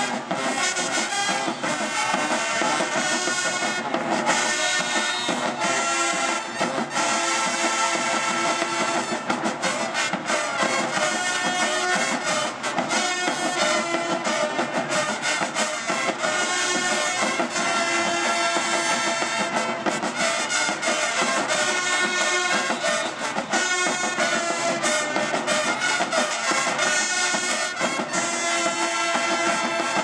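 Marching band playing in the stands: brass horns and sousaphones over snare and bass drums, loud and without a break.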